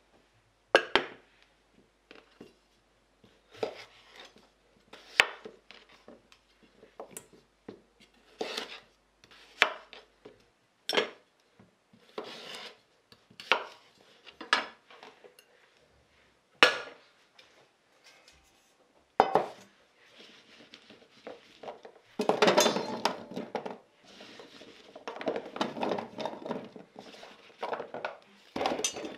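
Knife cutting small potatoes on a wooden cutting board: a dozen or so sharp knocks, one every second or two. Near the end, potato pieces clatter into a stainless steel steamer insert.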